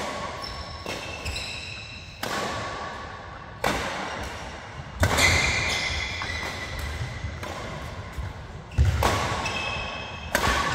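Badminton rackets striking a shuttlecock in a rally: sharp hits every one to two seconds, each echoing through the large hall, several followed by a brief ringing tone.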